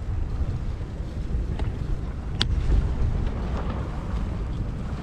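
Wind buffeting the microphone of a camera on a moving bicycle, a heavy fluttering rumble, with tyre noise on brick paving underneath. A single sharp click comes about two and a half seconds in.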